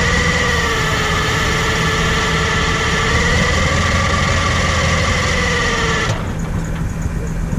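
Hopto H1900 hydraulic excavator's diesel engine running steadily, with a high whine that wavers slowly in pitch over the low engine drone. The whine cuts off suddenly about six seconds in, leaving a duller engine sound.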